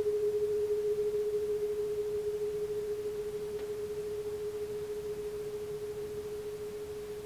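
A struck resonant instrument's single clear, pure-sounding note ringing on and slowly fading away, with a slight waver.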